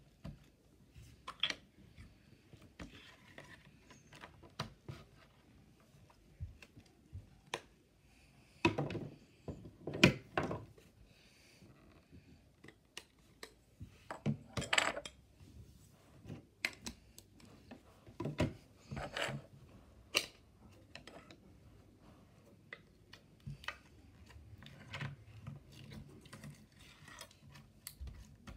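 Slime being squished and pressed by hand: irregular sharp clicks and small pops, with a few louder clusters of squelching in the middle. Now and then a light tap of a plastic tub on a wooden shelf.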